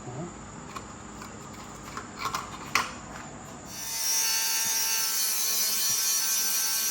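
A few metallic clicks and taps, then a power tool running steadily for about four seconds, starting a little past halfway, with a high hissing whine.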